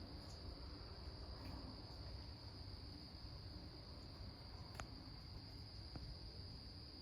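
Crickets chirping in a faint, steady, unbroken high-pitched chorus, with a single soft click about two-thirds of the way through.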